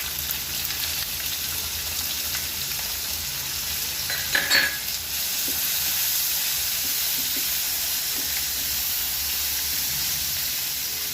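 Drumstick, potato, brinjal and tomato pieces sizzling steadily in oil in a kadai as they are stirred, with a brief clatter of the stirring spoon against the pan about four and a half seconds in.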